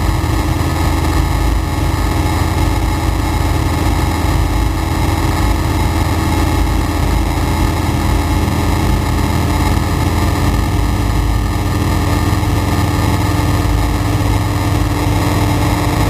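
Flight Design CTLS light aircraft's engine and propeller running steadily in flight, heard inside the cockpit as an even drone over rushing airflow.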